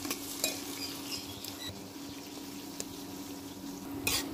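Sliced onions frying in hot oil in an aluminium pressure cooker: a steady sizzle with a few small pops. About four seconds in, a spatula stirs and scrapes the pot.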